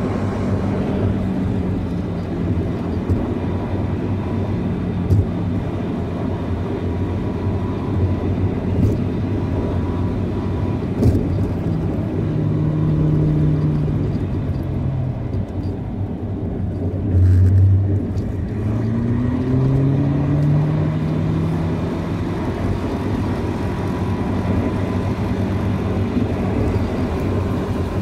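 Car engine and tyre rumble heard from inside the cabin of a moving car. The engine note shifts with the driving and climbs steadily about two-thirds of the way through, with a few light knocks from bumps in the road.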